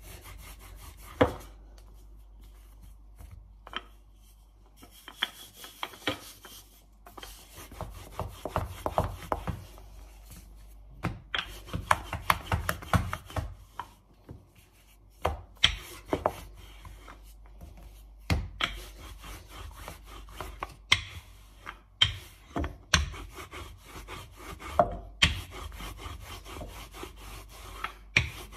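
Wooden rolling pin rolling pastry dough out on a floured countertop: repeated rough rubbing strokes, broken by sharp knocks now and then.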